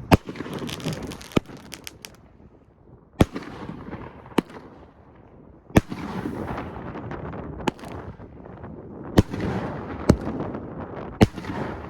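Consumer firework cake going off: sharp reports about every one to two seconds, nine or so in all, with a steady hissing, crackling noise between them.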